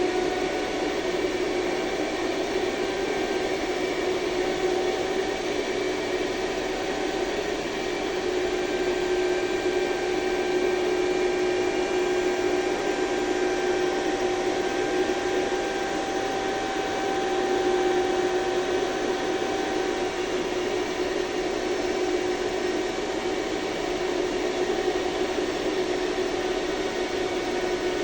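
HF-150 ventilation fan running steadily: an even rush of air with a constant mid-pitched hum over it.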